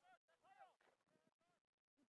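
Very faint, distant people's voices in short, breaking phrases.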